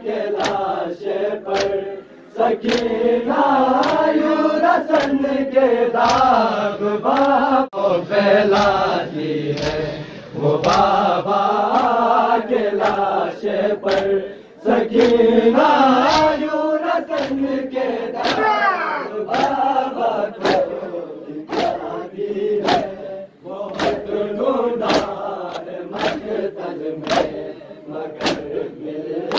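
A crowd of men chanting a noha (a Shia mourning lament) in unison. Sharp, regular slaps of matam chest-beating keep time, about one a second.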